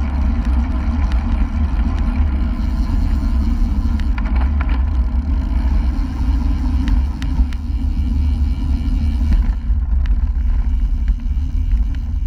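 Wind buffeting a GoPro's microphone on a bicycle moving at speed, with tyre noise: a steady, heavy low rumble with a few faint clicks.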